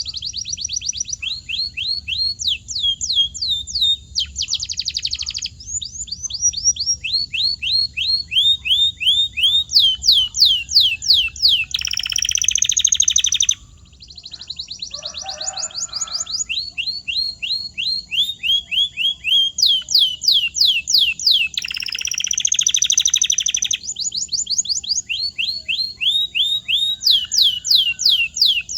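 Canary singing: fast series of repeated notes, each sweeping downward, several per second, broken twice by dense buzzy trilled rolls.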